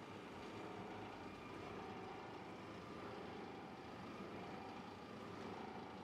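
Plastic film washing line machinery running, a steady mechanical hum with a faint whine.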